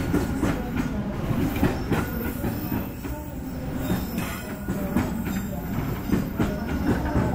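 Container flat wagons of a freight train rolling past, their wheels clattering over the rail joints with an irregular run of metallic clanks over a steady low rumble, and a faint wheel squeal now and then.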